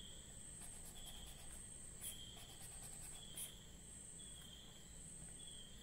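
Faint insect chirping: a steady high trill with a lower chirp repeating about once a second, and a few faint clicks.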